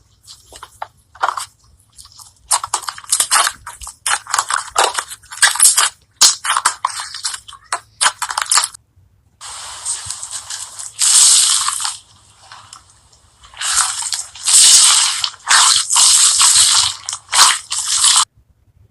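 Slime being squeezed, poked and stretched: runs of wet crackling and popping clicks, with a few longer crunchy, hissing stretches. A brief gap a little before the middle, likely a cut between slime clips.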